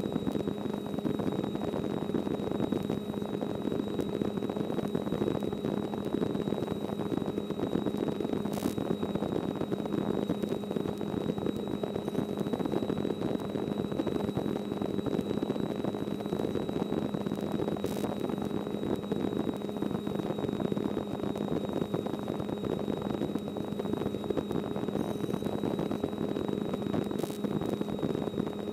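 Small helicopter in cruise: the steady cabin drone of engine and rotor, with a low hum and a thin high whine held level, and a few faint clicks.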